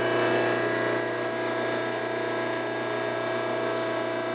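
Pump motor of an electric-hydraulic shop press running steadily, a constant hum, as the ram comes down to push a bearing out of a Model T starter part.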